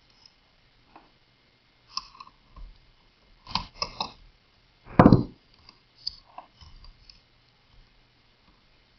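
Small clicks and scrapes of a screwdriver backing out the screws that hold an LCD monitor's power supply board to its metal chassis, and of the board being handled. One louder knock comes about five seconds in.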